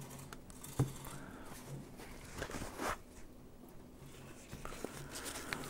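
Faint handling sounds: a light knock about a second in, then paper towel rustling and rubbing as it wipes the whisk of a battery-powered mini mixer.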